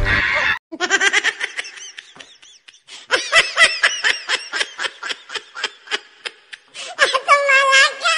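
Laughter: a long run of rapid, repeated giggling that starts suddenly about half a second in, with a higher, drawn-out laugh near the end.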